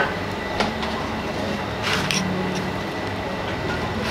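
A metal spoon working fried curry paste out of a steel mesh strainer onto a plate, with two light scrapes or clinks, about half a second and two seconds in, over a steady low hum.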